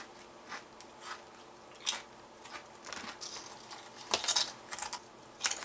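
Foil chip bag crinkling and Barcel Fuego chili-and-lime potato chips being bitten and crunched, in short sharp crackles; the loudest burst of crunching comes about four seconds in.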